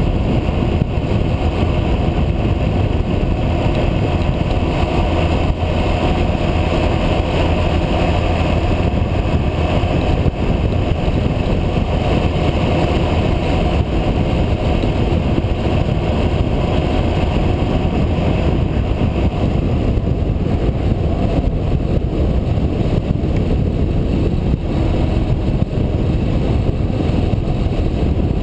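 Motorcycle riding at a steady cruising speed: a constant engine drone mixed with a loud rush of wind on the microphone, without gear changes or sudden events.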